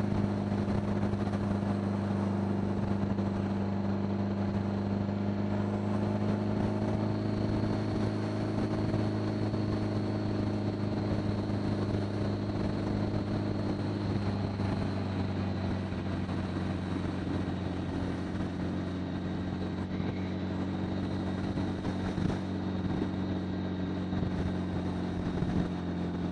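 A 1975 Honda Gold Wing's flat-four engine running steadily under way, heard with wind rush on a helmet-mounted microphone. Its note eases a little lower about halfway through.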